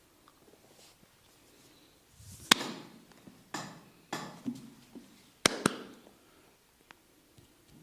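Percussive massage strikes landing on the body: six or seven sharp, irregularly spaced knocks, most of them packed into about three seconds in the middle, the first the loudest.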